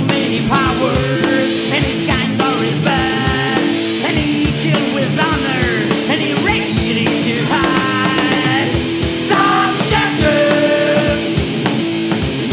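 Rock song: electric guitar and drums with a steady drum beat, and a wavering high melodic line over the top.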